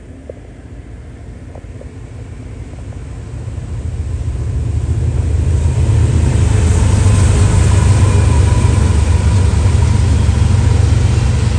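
Mainline freight train's four diesel locomotives approaching and passing close by: a low engine rumble that builds over about six seconds and then holds loud.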